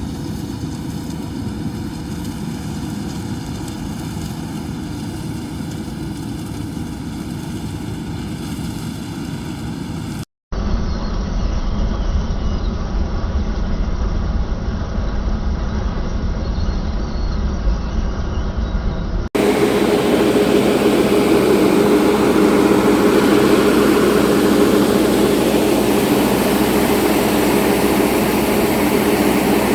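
Farm machinery engines running steadily, heard in three separate cuts. A short gap comes about ten seconds in, then a muffled low rumble, then from about nineteen seconds a louder steady drone with a strong hum.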